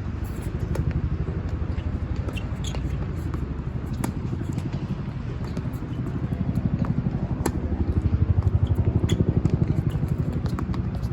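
Strong wind buffeting the microphone: a loud, fluttering low rumble that swells about two-thirds of the way in, with a few faint clicks over it.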